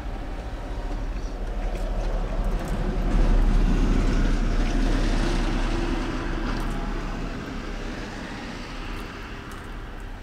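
A vehicle passing on the road outside, its noise swelling to a peak a few seconds in and then fading away slowly, over a steady low hum.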